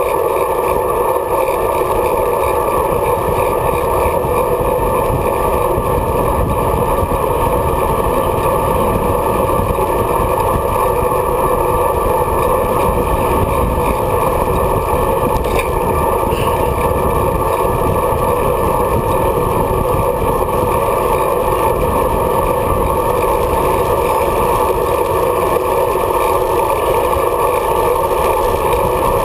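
Steady rush of wind and road noise on the microphone of a camera mounted on a moving bicycle.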